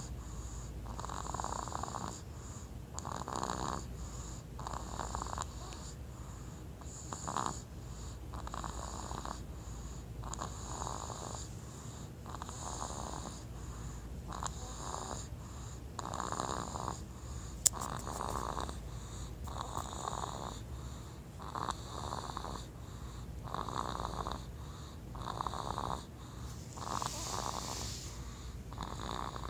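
Baby snoring in sleep, a soft snore on each breath at about one every second and a half. A single sharp click comes just past halfway.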